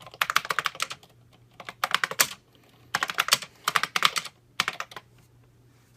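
Typing on a 1978 Harris Digitran Z-leaf keyboard, whose linear capacitive copper-leaf switches click in five quick runs of keystrokes with short pauses between, without the solenoid clicker (switched off). The typing stops about a second before the end.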